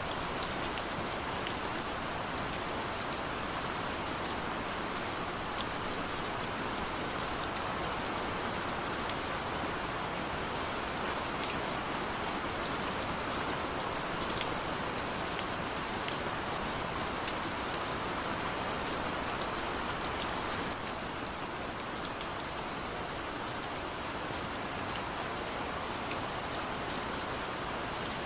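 Steady rain falling on a surface, with many individual drops ticking. It drops slightly in level about three-quarters of the way through.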